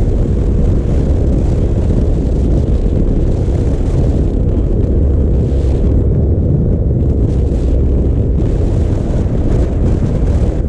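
Heavy wind rumble on the microphone from riding a Honda Navi scooter at highway speed, with the scooter's small single-cylinder engine droning steadily underneath.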